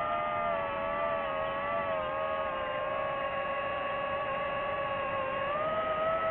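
DJI FPV drone's motors and propellers whining steadily in flight, the pitch wavering with the throttle and rising about five and a half seconds in.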